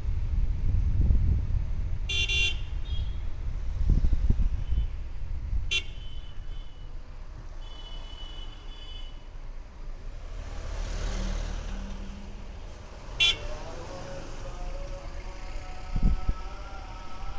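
Maruti Suzuki Alto 800's small three-cylinder engine and road noise rumbling steadily while driving in traffic. Short car-horn toots from other traffic sound three times: about two seconds in, about six seconds in, and about thirteen seconds in. A wavering tone rises in pitch near the end.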